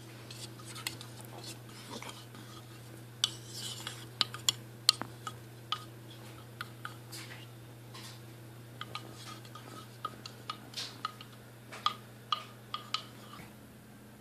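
A plastic spoon stirring a glue, water and blue food-colouring slime base in a bowl, with irregular light clicks and taps of the spoon against the sides.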